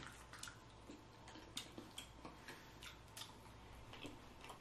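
Near silence with faint, irregular clicks and smacks of someone quietly chewing food.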